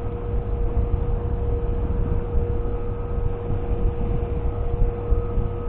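Wind buffeting the camera microphone over choppy, fast-flowing sea water from an inflatable boat, a steady low rumble with a thin steady hum running through it.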